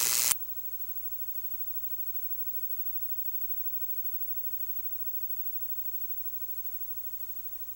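Near silence: a faint steady hiss and low hum. A loud hissing background noise cuts off abruptly a moment after the start.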